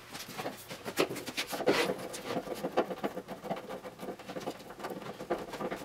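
MDF panels and screws being handled, with a screwdriver working a screw into the panel: irregular small clicks, taps and scrapes.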